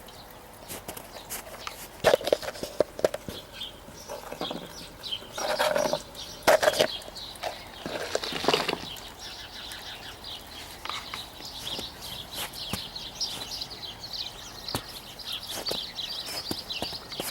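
Crows squabbling: several loud, harsh caws in the first half, then a long run of high twittering calls through the second half.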